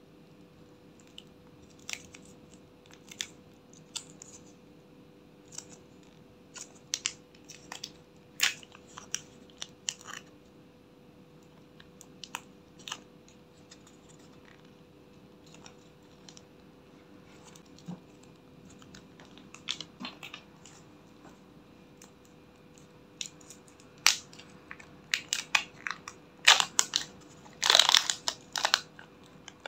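Hands working sticky slime and soft clay, with scattered wet clicks and pops, then louder crackling of a clear plastic bag being handled over the last few seconds.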